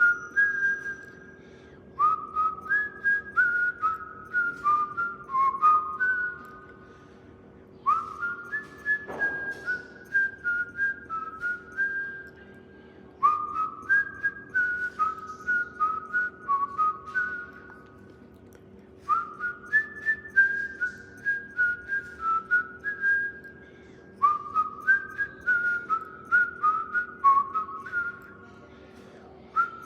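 A whistled tune: the same short phrase of quick notes stepping downward, repeated about every five to six seconds with brief pauses between.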